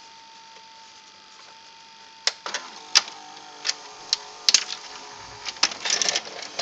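Open VHS recorder's mechanism running: a steady whine for the first two seconds, then a string of irregular clicks and clacks from the gears and levers of the tape transport as they shift.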